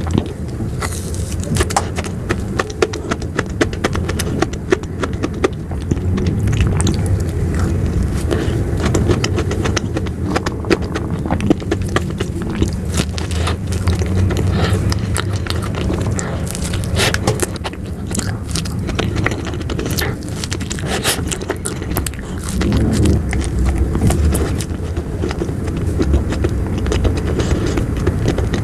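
Close-up mouth sounds of someone eating ice cream: many quick wet clicks and smacks, over a steady low rumble.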